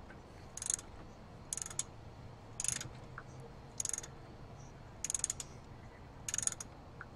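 Ratchet wrench clicking in six short bursts, about one a second: the pawl ticking over on each back-swing while a bolt is turned.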